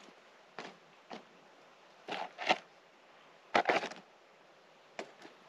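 Loose rocks being moved off a detector target: a handful of short clacks and scrapes, the loudest about two and three and a half seconds in.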